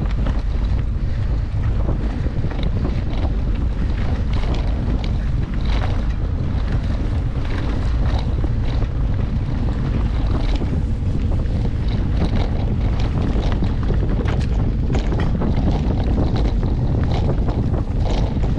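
Wind rushing over the microphone during a mountain-bike ride, a heavy steady rumble, with many short clicks and rattles scattered through it.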